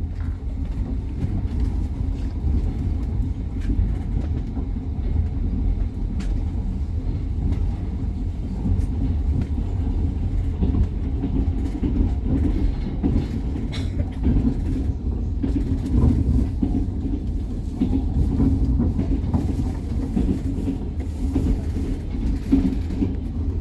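Passenger train running, heard from inside the carriage: a steady low rumble of the wheels on the rails, with a few faint clicks.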